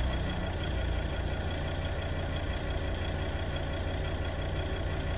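Volvo XC90 engine idling steadily with a knock at idle, the fault the owner is recording.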